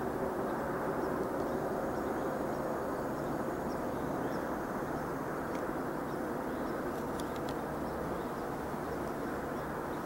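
Steady low rumbling background noise with faint, scattered high chirps, and a few faint clicks about seven seconds in.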